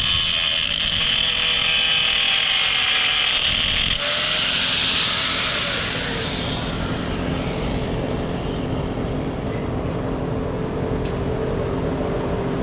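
Angle grinder grinding steel, switched off about five seconds in and winding down with a falling whine; an engine keeps running steadily underneath.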